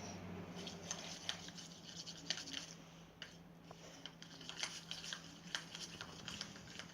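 Liquid soap being stirred to a foam in a small container: quiet, irregular scraping and clicking of the stirring utensil against the container.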